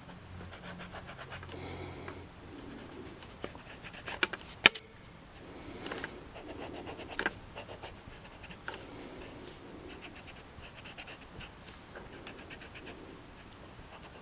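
Faint, irregular scratching and rubbing of an eraser and pencil on paper as sketch lines are erased and redrawn, with a few sharp clicks.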